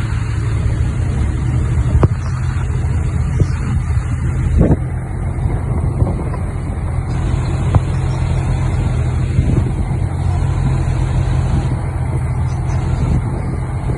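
Heavy diesel machinery engine running steadily, with a few short sharp clanks.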